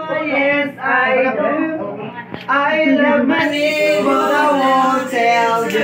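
A group of men and women singing together, unaccompanied, in held, gliding notes with a brief pause about two seconds in.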